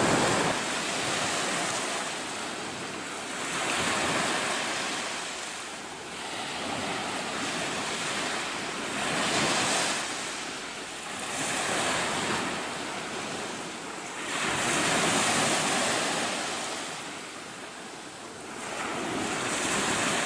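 Ocean surf: waves breaking and washing back, the roar swelling and fading about every five seconds.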